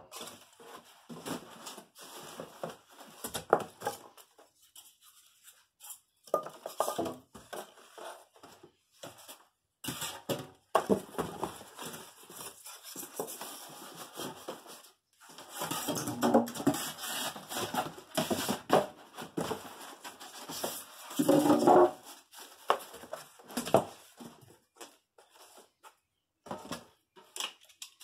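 Cardboard being handled and fitted into a box: irregular rustling and scraping of cardboard sheets, with scattered light knocks and a few louder bursts of handling.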